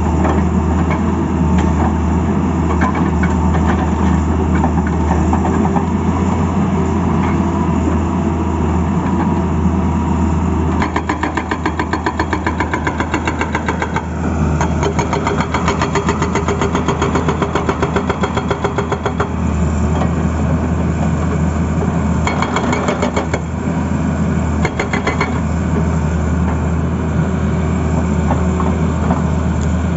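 Tata Hitachi excavator's diesel engine running steadily. A rapid, even clatter joins it for several seconds a little after a third of the way in, and again briefly later.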